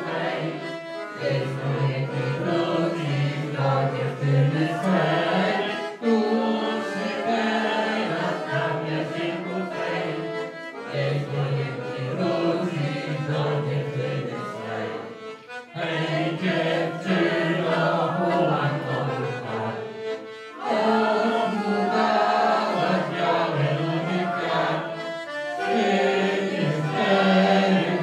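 A group of voices singing a song together to accordion accompaniment, in phrases of about five seconds with short breaks between them.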